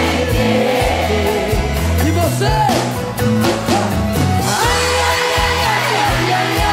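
Live sertanejo band playing: male voices singing the melody over acoustic guitars, bass and a drum kit keeping a steady beat.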